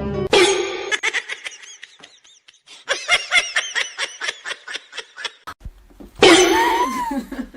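A person laughing in a long run of short, rapid, high-pitched bursts, then a louder cry near the end whose pitch rises and falls.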